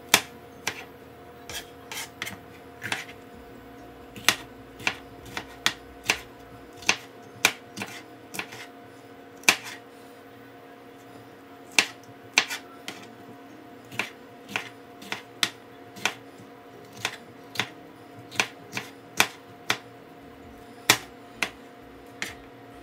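Chef's knife chopping bell peppers into strips on a plastic cutting board: sharp, irregular knocks of the blade hitting the board, about one to two a second, some louder than others, over a steady faint hum.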